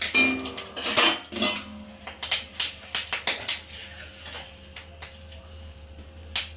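Mustard seeds and dry red chili spluttering in hot mustard oil in an aluminium kadai: many sharp, irregular pops, thickest in the first few seconds and thinning out later, with a metal spatula clinking and scraping against the pan.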